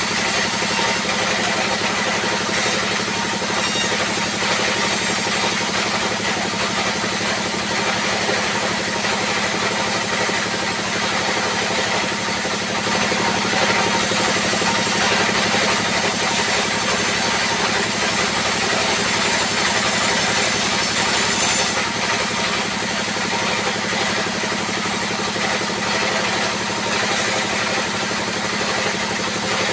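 Sawmill band saw running steadily over the drone of its diesel drive engine, the blade ripping through timber being fed by hand. A brighter cutting hiss rises about halfway through and stops abruptly a little past two-thirds.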